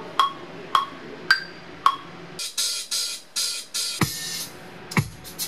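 Electronic beat from a drum machine and synthesizer. It opens with short pitched plucks about twice a second; noisy hi-hat-like hits come in about halfway through, then deep kick drums near the end.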